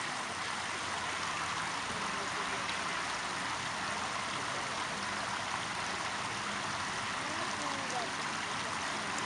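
Running water from a stream, flowing with a steady rush.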